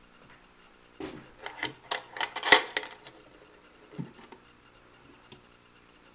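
The brass latch of a small cedar chest being undone and the wooden lid lifted open: a quick run of sharp metal-and-wood clicks and knocks, loudest about two and a half seconds in, then a single knock about a second and a half later.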